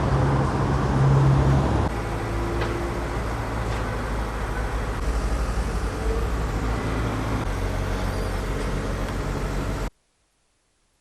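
Road traffic on a city street: a steady rumble of passing vehicles that cuts off abruptly to silence near the end.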